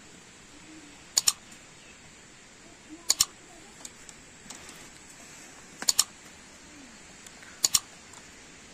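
Computer mouse-click sound effects: four sharp double clicks, about two to three seconds apart, over a low steady outdoor background.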